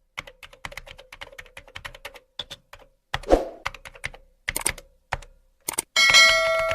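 Rapid computer-keyboard typing clicks, then a short whoosh with a thud about three seconds in and a few more clicks. Near the end a bright ringing chime with several steady tones sounds and fades out.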